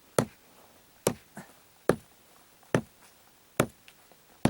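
Hand hammer striking stones to crush them into sand: six sharp, evenly spaced blows a little under a second apart, two followed by a lighter tap.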